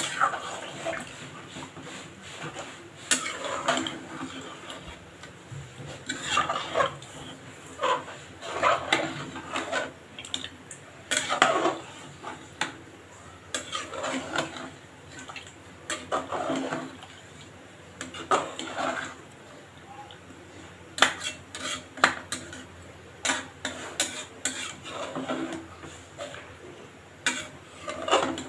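Spoon stirring chicken curry in an aluminium pressure cooker, scraping along and clinking against the pot's side in irregular strokes.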